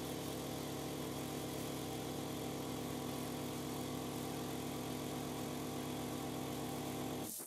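Power sander motor running steadily with an even hum while body filler on a steel panel is sanded. It cuts off abruptly near the end.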